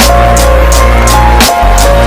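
Loud background music with a steady beat: regular hi-hat-like ticks about four a second over a held bass and sustained melody notes.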